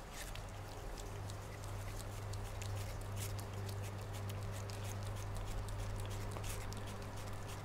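A cat chewing and biting into a slice of watermelon: quick, irregular clicks of its jaws and mouth, over a steady low hum.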